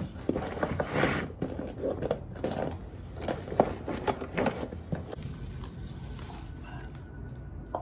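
Rustling and scattered clicks and knocks of belongings being handled while a suitcase is packed, with one sharper click about three and a half seconds in.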